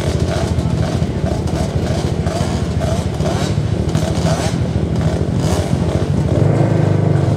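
Several youth racing quads running on the starting line in a steady engine drone that grows louder about six seconds in as they rev up.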